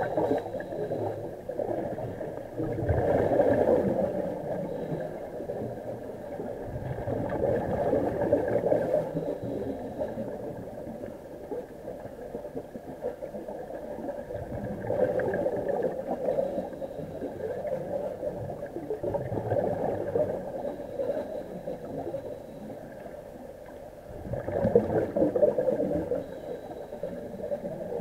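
Muffled underwater sound of a diver breathing on an IDA-59M rebreather and helmet, swelling and fading about every five seconds with each breath.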